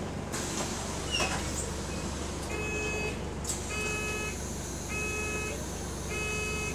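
Electronic warning beeper inside an Enviro400 MMC double-decker bus, sounding four even beeps about a second apart from a couple of seconds in, over the steady low drone of the bus's engine.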